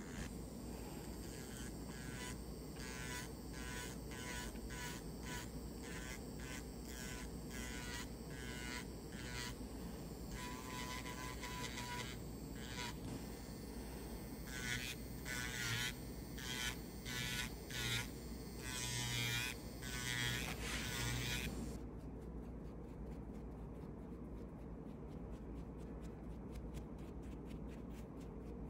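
Repeated short filing strokes on an artificial nail tip, about two a second, louder and more irregular for the last several seconds before stopping about three-quarters of the way through, over a low steady hum.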